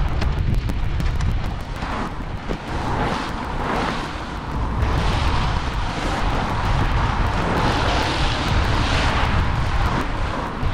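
Steady rushing noise of wind and road traffic, heaviest in the low end, with whooshing swells every second or two.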